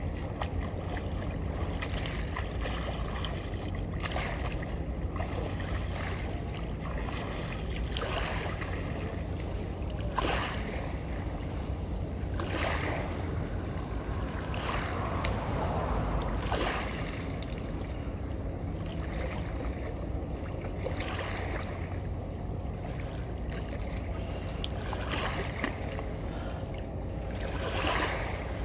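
Sea water splashing in repeated surges every second or two, over a steady low rumble.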